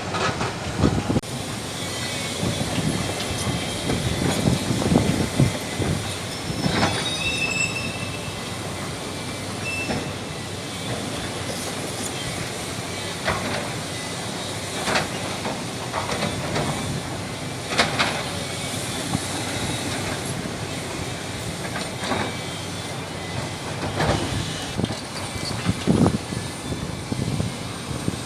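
Heavy excavator working broken rock: the engine runs steadily under load, with irregular sharp metal clanks and knocks from rock and steel and a few brief high metallic squeals.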